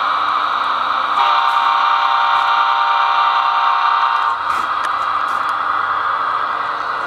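Sound decoder in an HO scale SD70ACe model diesel locomotive blowing its multi-note air horn once for about three seconds, starting about a second in, over a steady hissing running sound.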